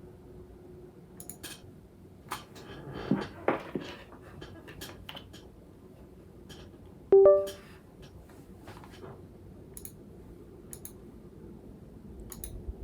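Scattered light clicks and clacks, with a denser cluster about three seconds in. About seven seconds in comes a short electronic chime of a few stepped tones, the loudest sound. A faint steady hum runs underneath.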